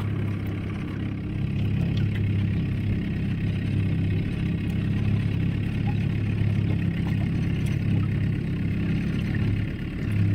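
Boat's outboard motor running steadily at slow trolling speed, a constant low hum.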